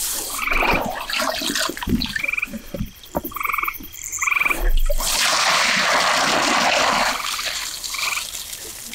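Water pouring out of an upended rubber wader boot onto the ground: a steady rush of splashing from about five seconds in, tailing off near the end, after rustling of the wet waders being pulled off. Frogs call in the background with short pulsed trills about once a second.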